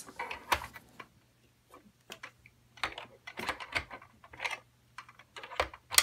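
Light plastic clicks and taps, irregular and a few to the second, as small Playmobil figures are handled and set into the cab of a plastic toy truck. The loudest taps come near the end.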